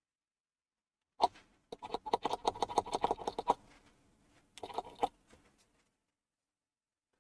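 A sharp click about a second in, then a rapid clatter of small clicks and taps for about two seconds, and another short cluster near five seconds in: hard computer parts being handled inside an open desktop PC.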